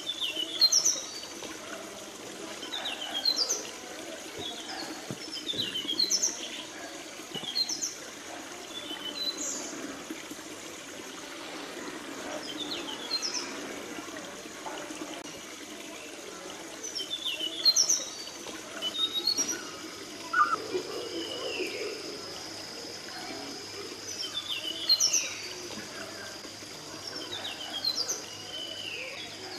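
Forest birds calling: short, sharp, downward-sliding chirps repeat every couple of seconds over a steady background hiss.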